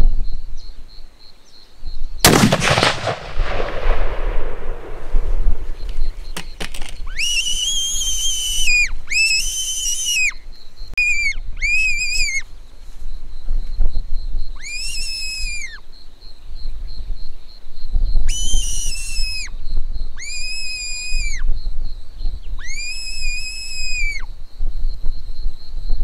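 A single 7mm Remington Magnum rifle shot about two seconds in, echoing away over several seconds. From about seven seconds in, a button fox whistle blows a series of about eight high calls that bend up at the start and down at the end, most about a second long and a few short, used to call another fox in. A faint steady pulsing insect buzz runs underneath.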